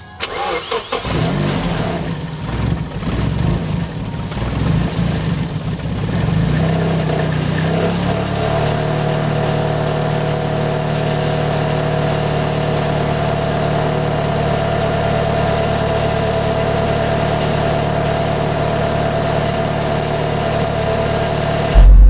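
Nissan KA24DET turbocharged 2.4-litre four-cylinder engine cranking and catching, running unevenly for several seconds, then settling to a steady idle about eight seconds in. This is the first start after new ignition coil and distributor connectors were fitted to cure a weak-spark, rich-running problem.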